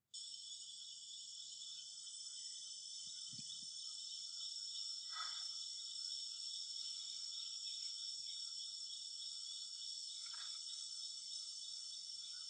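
Dense, steady, high-pitched chorus of forest insects, coming in abruptly at the start. Two brief fainter sounds cut through, about five and ten seconds in.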